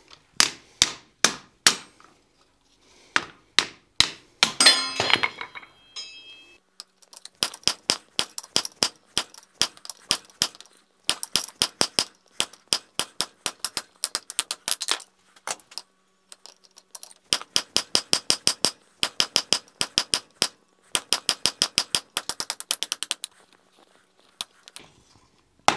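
Hand hammer striking a red-hot coil-spring steel bar laid over the hardy in an anvil, cutting it into pieces. A few heavy, widely spaced blows come first, one leaving a short ringing about five seconds in. Two long runs of quicker, lighter strikes follow, about four or five a second, as the cut nears its end.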